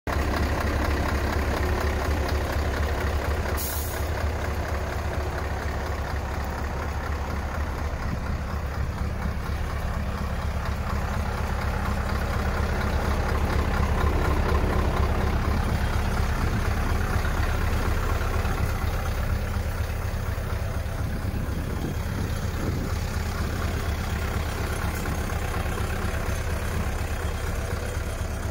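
Scania R500's V8 diesel idling steadily with a deep, even rumble. A brief hiss comes about four seconds in.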